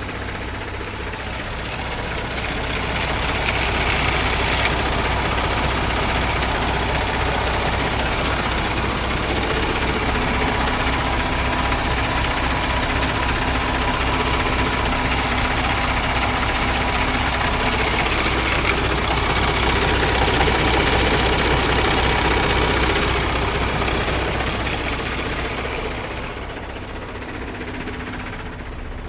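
Paccar MX13 diesel engine of a Kenworth T680 idling steadily. It runs again after its crankcase ventilation filter and breather hoses were replaced. It gets louder a few seconds in and softer again near the end.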